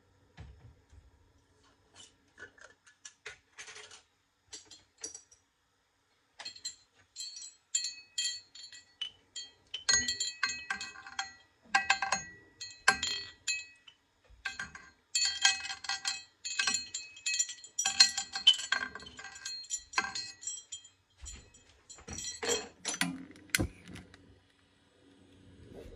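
Glass jar clinking and rattling, handled over the stovetop: a few light clicks at first, then a long run of quick, irregular clinks with short ringing tones, and a few heavier knocks near the end.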